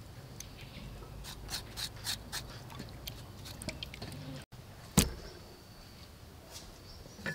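Knife cutting and scraping wet raw pork skin and fat: a run of faint, irregular wet clicks and squishes. About five seconds in comes a single sharp knock.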